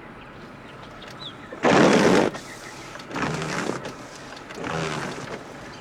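Car windshield wipers sweeping across the glass about every second and a half over steady road noise in the cabin, the first sweep the loudest. The blades drag with a buzzy chatter, wipers the driver says suck.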